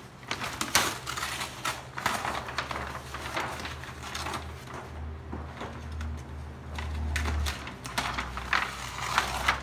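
Brown masking paper crinkling and rustling as it is handled and pressed into place on the box, in a quick run of short crackles.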